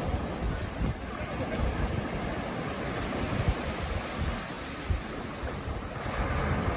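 Ocean surf washing on a beach: a steady hiss of breaking waves, with wind gusting on the microphone in low rumbles.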